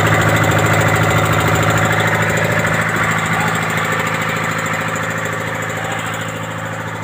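Rebuilt Detroit Diesel two-stroke diesel engine running steadily, growing gradually fainter through the second half.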